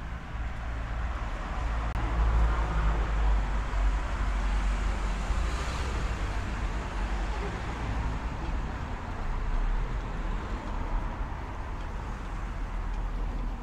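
Street traffic noise: a car goes by on the road beside the pavement, swelling over the first few seconds, over a steady low rumble.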